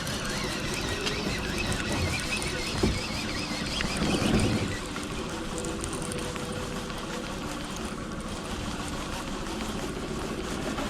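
A boat's motor running steadily, with wind and water noise over it. There is a brief louder rustle about four seconds in.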